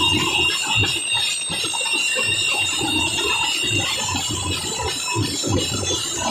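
Loud live street-band music at a band competition, with a steady high ringing held over the dense, pulsing music.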